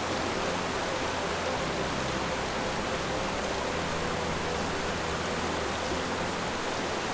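Rushing water of a rocky stream's rapids and cascading waterfall: a steady, even white-water noise, quite noisy.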